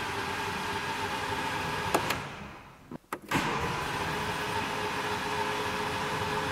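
BMW 116i (E81) N43B16 four-cylinder engine cranked on the starter without catching: a steady whirr that stops about two seconds in and starts again about a second later. It won't fire because compression is under 2 bar in every cylinder, the intake camshaft having been fitted 90 degrees out.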